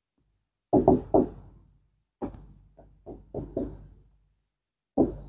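A marker knocking and tapping against a whiteboard on a wooden cabinet while writing: sharp irregular knocks, three in quick succession about a second in, a looser run of about five after that, and one more near the end.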